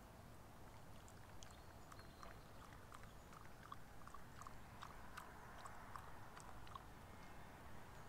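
Small dog lapping water from a cup: a run of soft, quick laps, about three a second.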